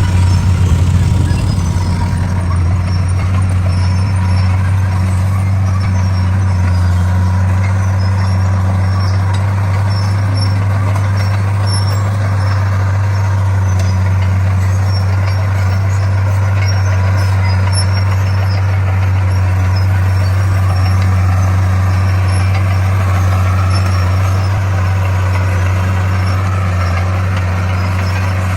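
D41 bulldozer's diesel engine running steadily at a constant speed with a deep, even hum while it works the stone.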